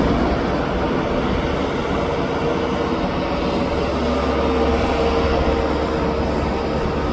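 Diesel engine of a New Holland tractor running steadily under load while it drives a PTO-powered rotary harrow puddling a flooded rice paddy, a continuous low hum with a steady whine above it.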